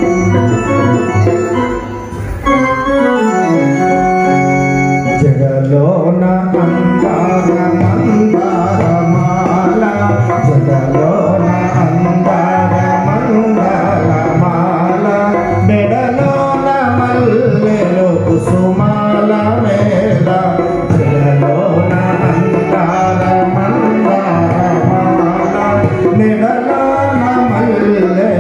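Live devotional bhajan music: an electronic keyboard playing organ-like tones over a drum rhythm, with a man singing into a microphone.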